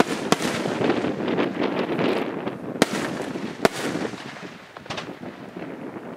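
Aerial firework shells bursting: a dense crackling wash, with sharp reports about a third of a second in and twice around the three-second mark, thinning out toward the end.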